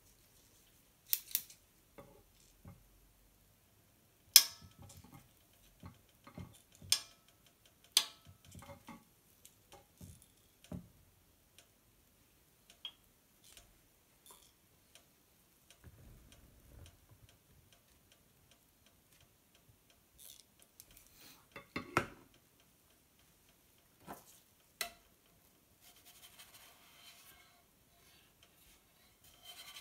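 Scattered clicks and taps of plastic kitchen tongs and a spatula knocking against slate boards and a griddle plate as pancake cups are picked up and set down. Near the end a faint sizzle of pancake batter cooking on the griddle sets in.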